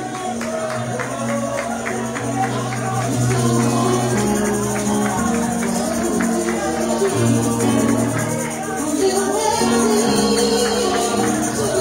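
Live worship music: keyboard chords over a bass line, with voices singing into microphones. A quick, steady percussion beat runs through the first half.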